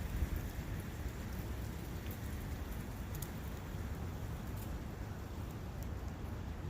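Brook running through a forest: a steady rush of flowing water, with faint high ticks scattered through it.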